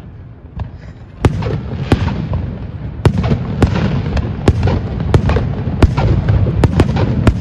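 Fireworks display with aerial shells bursting: a couple of sharp bangs about a second in, then a rapid string of bangs from about three seconds on.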